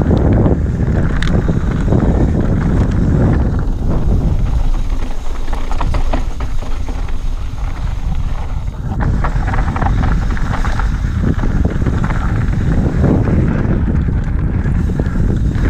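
Wind buffeting a helmet- or bike-mounted action camera's microphone while a mountain bike descends a gravel trail, with the tyres running over loose stones and short rattles from the bike.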